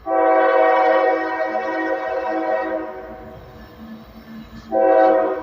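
Diesel locomotive air horn on a loaded coal train: one long blast, then a second short blast near the end, sounded as a greeting to the people at trackside.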